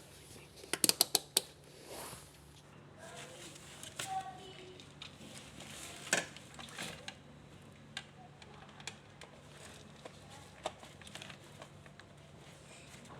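Clicks and knocks from handling tools and machine parts during a washing-machine repair: a quick run of about five sharp clicks about a second in, one louder click about six seconds in, and scattered lighter clicks, over a faint low steady hum.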